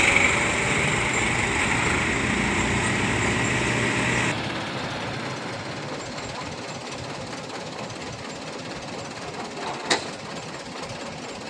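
Light box truck passing close, its engine running with a hard knocking beat over tyre noise; about four seconds in the sound drops abruptly to a quieter steady road hum, with one sharp click near the end.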